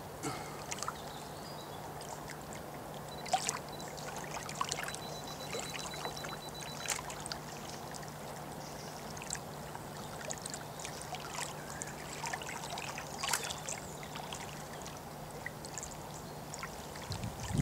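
Small waves lapping against the lake shore: a steady wash of water with irregular small splashes and slaps.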